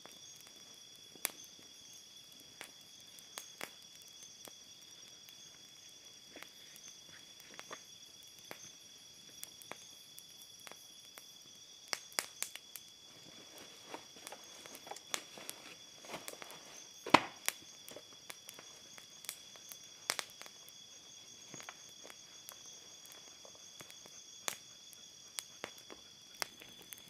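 A steady, high-pitched chorus of night insects over a wood campfire crackling with scattered sharp pops, the loudest pop about 17 seconds in. Some rustling of bedding is heard through the middle.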